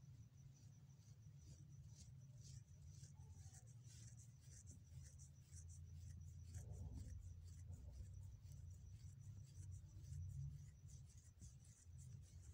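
Near silence: a faint low hum of room tone with light scattered ticks.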